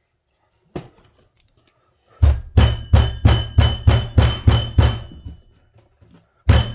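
Repeated thumps as a tape-wrapped plastic grommet hole plug is pounded down into a hole in a solid wooden desktop: a single knock, then a run of about nine quick blows at roughly three a second, then after a pause about four more near the end. Each blow is a deep thump with a short ringing overtone.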